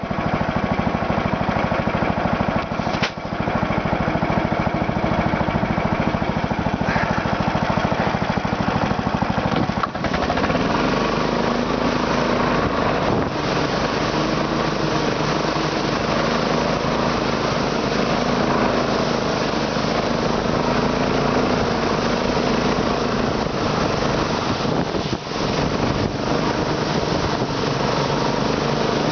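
Internal combustion engine running steadily with a fast, even pulse. About ten seconds in the sound changes, the deep rumble dropping away and a smoother hum taking over.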